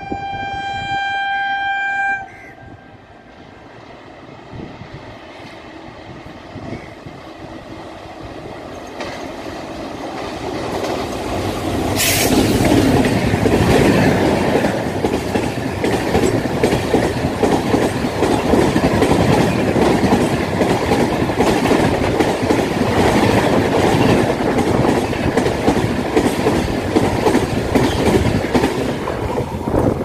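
Electric locomotive horn sounding one steady tone that cuts off about two seconds in, then an express train approaching and running through at speed: a rising rush that turns loud about twelve seconds in, with the wheels of the passing coaches clicking steadily over rail joints.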